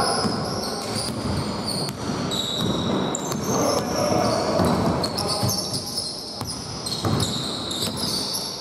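Basketball game sounds on a hardwood gym floor: players' sneakers squeaking in short high chirps all through, with a few thuds of the ball being dribbled.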